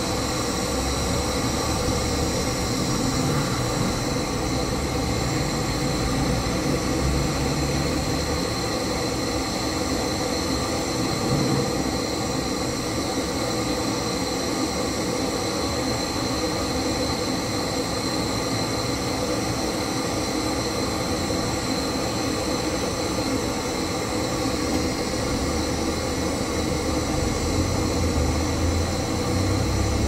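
Gas brazing torch flame hissing steadily as a refrigerator capillary-tube joint is brazed.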